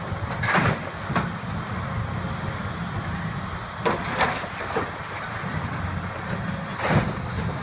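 Caterpillar hydraulic excavator's diesel engine running steadily while it demolishes a building, with several sharp crashes and clatters of debris being grabbed and dropped.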